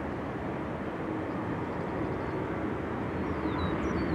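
Distant jet engines of a taxiing cargo airliner, a steady noise that grows slightly louder toward the end.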